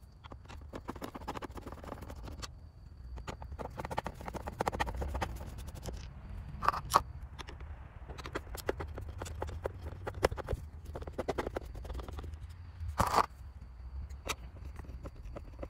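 Small screws being backed out around the edge of a Porsche 944 Turbo's VDO gauge cluster housing with a screwdriver: runs of rapid clicking and scraping. Two short louder clacks, about seven seconds in and again near thirteen seconds.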